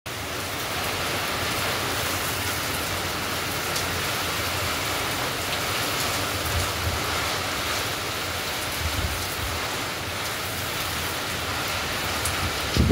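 Heavy rain pouring in a strong windstorm: a steady hiss of rain, with a low rumble of wind gusts that swells now and then.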